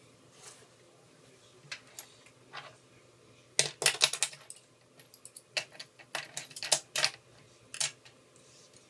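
Small hard objects clicking and clinking against a work surface in irregular clusters, with a busy flurry about a third of the way in and another past the middle, like small metal tools and phone parts being handled.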